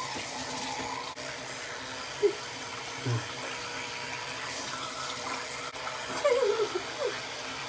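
Electric toothbrush buzzing in the mouth during tooth brushing, a steady hum over a steady watery hiss. A few short murmured sounds come through about two seconds in and again near the end.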